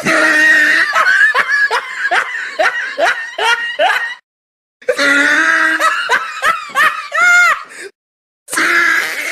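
Loud laughter in quick, repeated ha-ha bursts, in three stretches, each cut off abruptly by a short dead-silent break.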